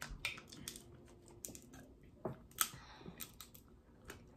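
Scattered quiet clicks and cracks of snow crab leg shells being broken and picked apart by hand.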